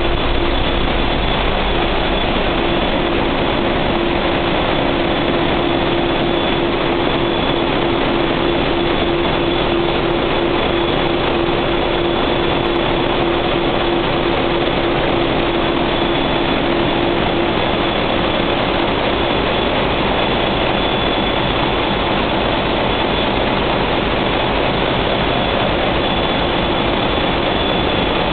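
Steady, loud din of the large diesel generator engines running in a cruise ship's diesel-electric engine room, with a constant low hum and a thin high whine over the machinery noise.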